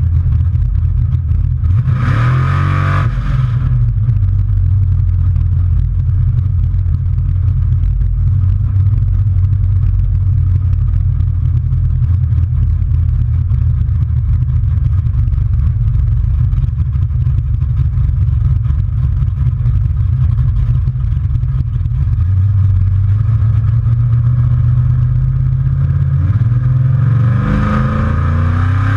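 Chevrolet S-10 pickup's 383 stroker V8 running steadily under way, heard from the truck bed. A short burst of throttle about two seconds in, and a long pull with the engine note rising in pitch near the end.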